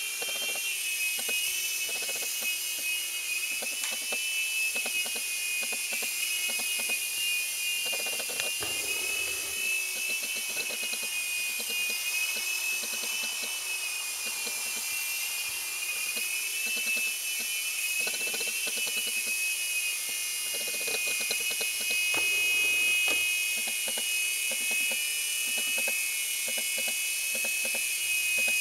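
Phoenix three-channel mini RC helicopter's small electric motors and rotors whining steadily in flight, a high-pitched whine whose pitch wavers slightly up and down as the throttle shifts.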